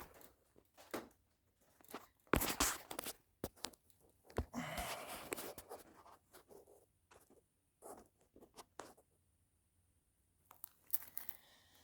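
Scattered clicks, knocks and rustling from objects being handled, with a quiet stretch of a few seconds in the middle.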